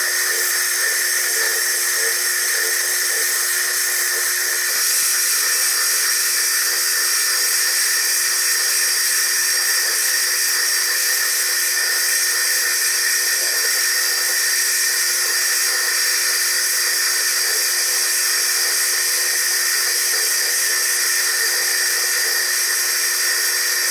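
Foredom bench lathe spinning a core drill against a hand-held stone ball, grinding it round. It makes a steady high-pitched whine over a grinding hiss.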